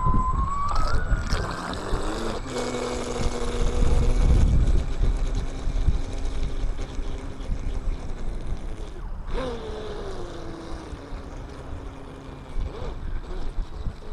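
Electric radio-controlled speedboat's motor whining on the water. The pitch rises about a second in and holds steady, breaks off around nine seconds, then comes back and falls steadily as the boat eases off or runs away. Wind rumbles on the microphone throughout.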